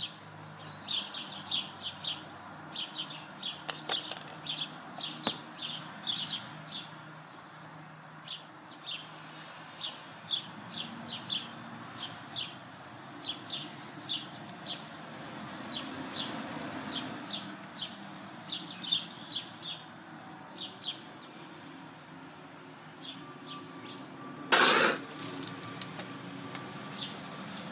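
Small birds chirping, short high chirps coming in quick runs again and again. Near the end there is one loud, short rush of noise lasting about half a second.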